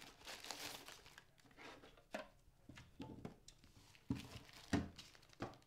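Clear plastic packaging bag crinkling as it is handled, with a few light knocks as parts of the unboxed access point are set down on a table, the loudest near the end.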